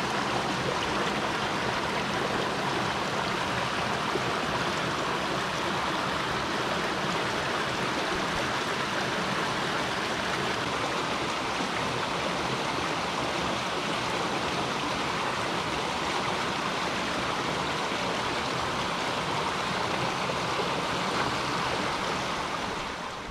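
A stream's running water, a steady rushing flow that cuts off suddenly at the very end.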